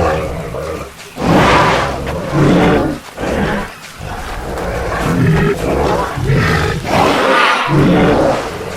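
A series of loud animal roars, six or seven in a row, each lasting about a second with short gaps between them.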